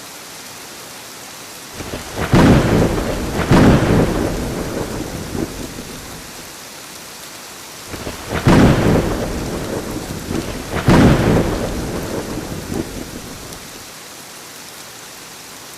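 Steady heavy rain with thunder rolling twice: each roll opens with two loud cracks a second or two apart, then rumbles away over several seconds.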